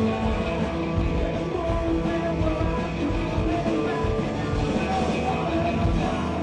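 Rock music with electric guitars and drums.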